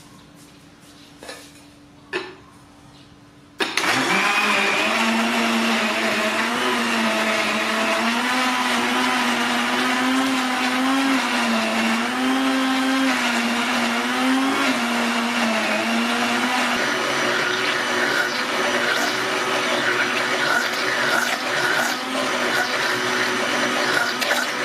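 A couple of light clicks, then about three and a half seconds in an electric countertop blender starts suddenly and runs steadily, its pitch wavering a little as it purées apple pieces and mango into a smoothie.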